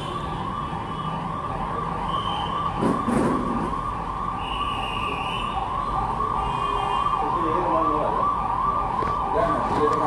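An emergency vehicle's electronic siren wailing in fast yelp mode, its pitch rising and falling about two or three times a second without a break. There is a single knock about three seconds in.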